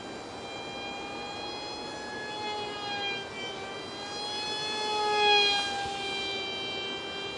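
Ultra-micro RC foam jet's 8mm motor and direct-drive propeller whining in flight, rising and falling in pitch. It is loudest a little past five seconds in.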